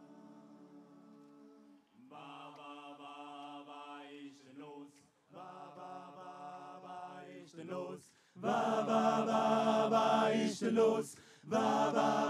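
A cappella vocal group singing the opening of a song in sustained close-harmony chords with no instruments, fed straight from the mixing desk. It starts soft and becomes much louder about eight seconds in, with short breaks between phrases.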